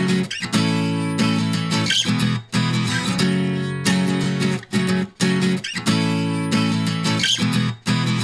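Background music led by guitar chords.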